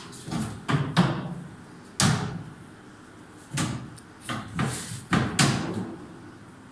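Kitchen cabinet doors being swung open and shut, a series of about eight sharp knocks, each with a short ring-out. The loudest comes about a second in.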